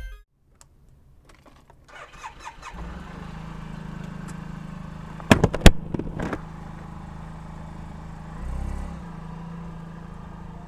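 Suzuki Burgman 650 maxi-scooter's parallel-twin engine starting after a few clicks, about three seconds in, then running at a steady idle. A few loud sharp knocks come near the middle.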